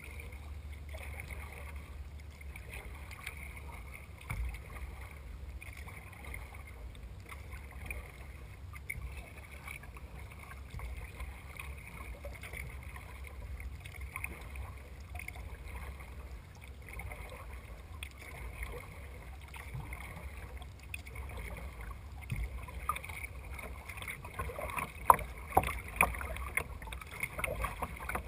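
A kayak moving through water: paddle strokes and water lapping and splashing against the hull, over a steady low rumble. The splashes get louder and more frequent near the end as the water turns choppy.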